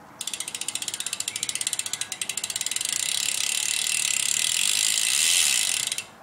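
Stock cassette hub of a 2011 Eddie 2 BMX bike freewheeling, its pawls ratcheting in a stream of clicks that speeds up into a steady buzz and grows louder, then cuts off suddenly near the end.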